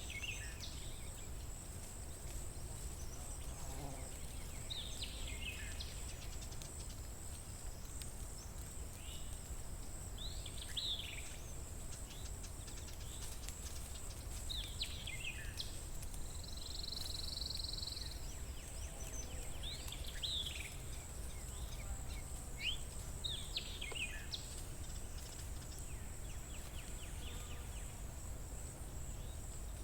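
Outdoor spring ambience: a songbird repeats short, downward-sliding calls every few seconds over a steady high-pitched hiss and a low background rumble.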